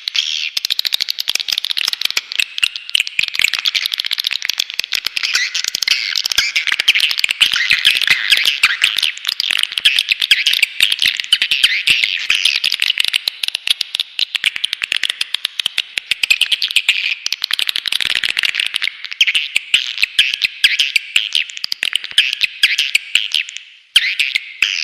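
Swiftlet calling recording: a dense, continuous chatter of rapid twittering chirps from many swiftlets, used as a lure to draw the birds into a swiftlet house. Near the end it breaks off briefly and starts again.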